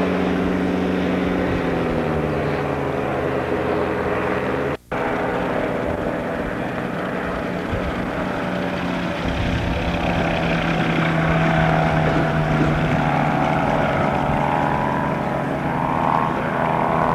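Small propeller engines running. First the Air Command gyrocopter's engine and propeller drone, falling in pitch as it is throttled back. The sound cuts out for a moment about five seconds in. After that an ultralight aircraft's engine runs steadily as the plane flies low over the grass strip and taxis, rising slightly in pitch near the end.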